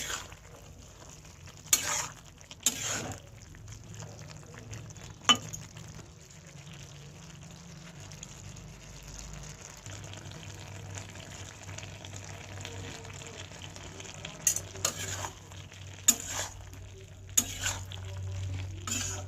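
Soya chunks and potatoes frying in a pan with a steady sizzle, stirred with a spatula that scrapes and knocks against the pan every few seconds, most often near the start and again near the end.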